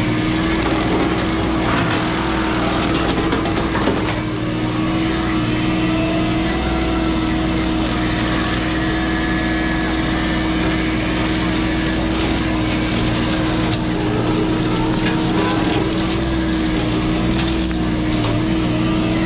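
CAT 304 mini excavator running a Blue Diamond hydraulic brush cutter, a steady whine over the diesel engine as the head mulches brush and wood. There is a sharper crack about four seconds in.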